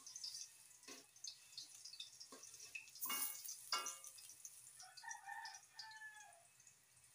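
Metal tongs clicking and scraping against an aluminium wok while frying saba banana slices are turned, with a faint sizzle of the frying oil; two sharper strikes about three seconds in leave the wok ringing briefly. A rooster crows in the background past the middle.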